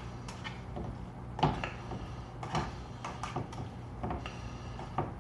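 Kitchen handling sounds at the stove: a few separate knocks and clicks, the loudest about a second and a half in, over a low steady hum.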